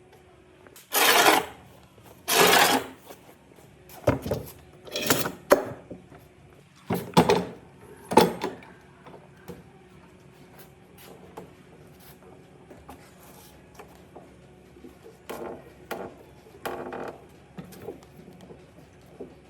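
Short scraping strokes on wood, each about half a second, coming in irregular groups during the first half, with a few fainter strokes near the end.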